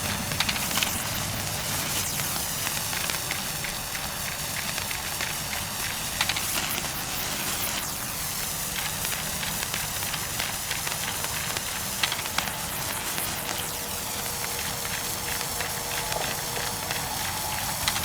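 Sparklers burning on a novelty firework stand, fizzing and crackling steadily, with a few sharper pops now and then.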